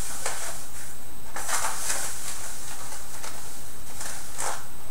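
Sugar being spooned out of a bag into a mixing bowl of dry ingredients: a few short gritty scrapes and rustles of the bag and spoon, over a steady background hiss.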